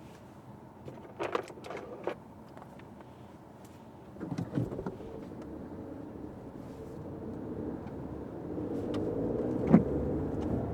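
Fiat 500X driving in the rain: steady road and engine noise, with a few sharp knocks in the first two seconds and again about four seconds in. The engine hum grows louder from about eight seconds in as the car speeds up, and there is one loud knock near the end.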